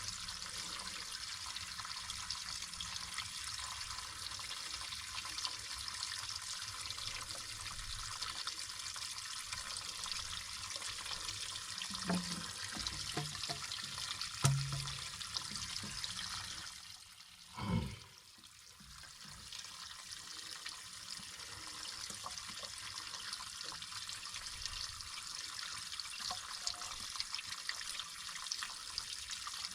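Water from an artesian well pipe running steadily, with a brief drop and a knock about seventeen seconds in.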